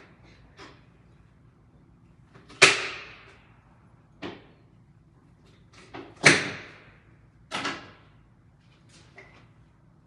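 A series of sharp knocks and bangs at uneven intervals, typical of cookware or utensils being set down or struck in a kitchen. The two loudest come about two and a half seconds in and just past the middle, each ringing out briefly, with lighter taps between them.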